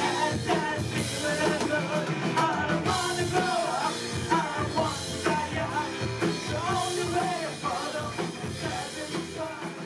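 Rock music with a sung vocal line over guitar and drum kit, fading out over the last few seconds.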